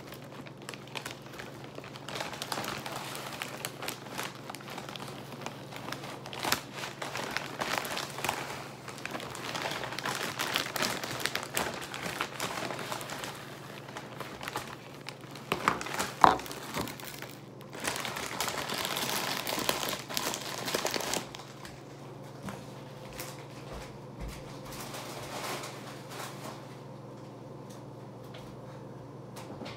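Large plastic cereal bag crinkling and rustling as it is handled, with many small clicks and a sharp knock about halfway through. The crinkling stops about two-thirds of the way in, leaving a faint steady hum.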